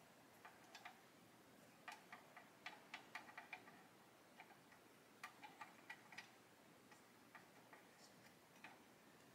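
Faint, irregular little clicks and taps in loose clusters as hands work a plastic model tank hull, pressing a sharpened cotton bud along a glued photo-etched mesh grille.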